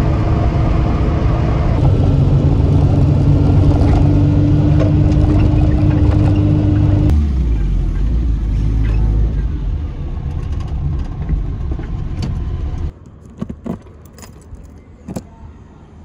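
Small classic car's engine running with road noise, heard from inside the cabin. The engine note drops at about seven seconds, and near the end it cuts off suddenly, leaving a few scattered clicks and knocks.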